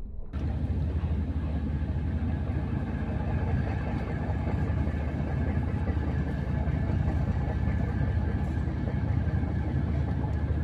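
A large engine idling steadily, a deep even hum that starts just after the beginning and holds without change.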